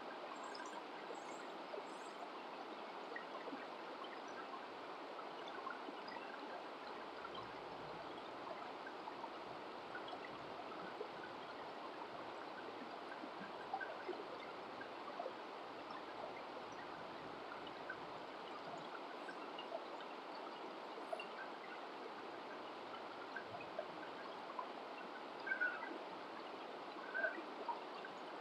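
Shallow river running over a rocky bed: a steady rush of flowing water.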